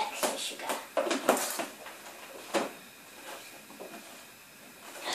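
A spoon clinking and scraping against bowls and a plastic tub while sugar is scooped and weighed on kitchen scales: a run of short knocks in the first second and a half, one more about 2.5 seconds in, then quieter handling.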